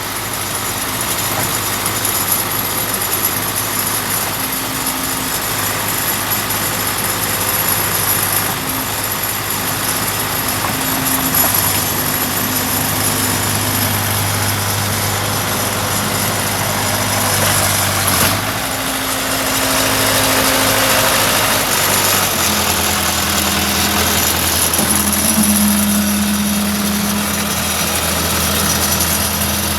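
Case 580C backhoe's engine running steadily, its note shifting about two-thirds of the way through.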